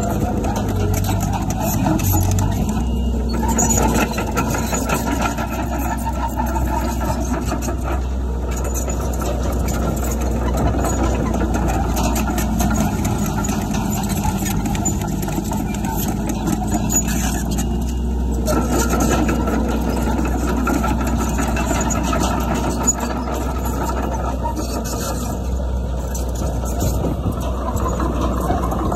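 Diesel engine of a Komatsu D31PX crawler dozer running steadily, with many short clanks and rattles over the engine drone.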